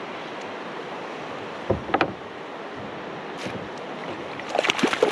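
Steady rush of river water from nearby rapids. There is a single knock about two seconds in, and a flurry of splashing near the end as a hooked walleye is reeled up to the kayak.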